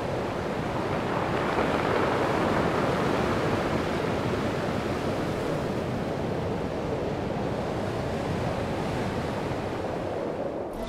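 Sea surf washing onto a shore: a steady rushing wash of waves, easing slightly near the end.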